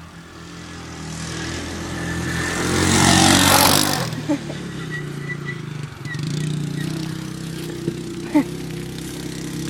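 A motor running steadily, with a loud rushing hiss that swells over a few seconds and cuts off suddenly about four seconds in.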